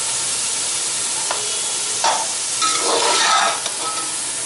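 Mutton, tomatoes and green chillies sizzling in hot oil in a metal pot while being browned, with a metal spoon stirring and scraping against the pot about a second in, at two seconds and again around three seconds.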